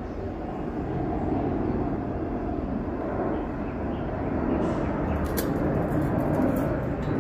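Steady low outdoor rumble with no distinct source, with a few faint clicks near the end.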